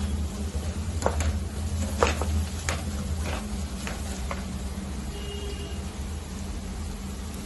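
A spatula stirring and scraping chopped beans and carrots as they sauté in butter in a pan, with a faint sizzle over a steady low hum. Sharp clacks of the spatula against the pan come about every half second for the first four seconds or so, then the stirring goes quieter.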